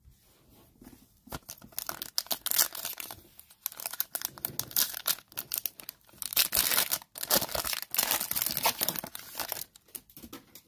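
Plastic wrapper of a 2020-21 NBA Hoops trading-card pack being torn open and crinkled by hand, with dense, irregular crackling that starts about a second in and stops just before the end.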